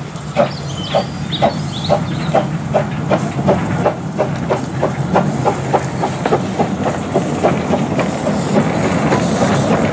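Kerr Stuart Wren 0-4-0 saddle-tank narrow-gauge steam locomotive working along the track: an even run of exhaust chuffs, about two a second and slowly quickening, over a steady hiss of steam. The sound grows slightly louder towards the end as the engine comes closer.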